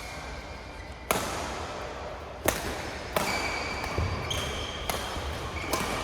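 A badminton rally: badminton rackets striking the shuttlecock with sharp cracks, four main hits a second or less apart, with brief high squeaks from court shoes between the hits.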